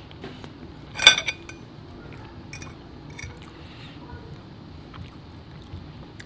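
A fork clinks sharply against a china plate about a second in, ringing briefly. A few lighter taps and scrapes of the fork on the plate follow.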